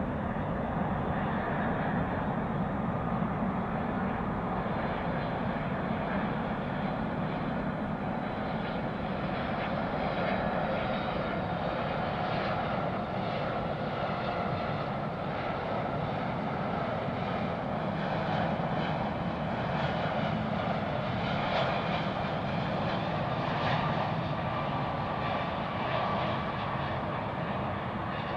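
Jet engines of a Boeing 757-200 airliner, a steady drone as the plane passes at low altitude, with a higher whine growing more prominent in the second half.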